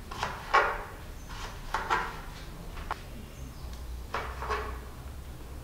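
Knife chopping tender jackfruit into small pieces on a plastic cutting board: several short, sharp cuts coming in twos.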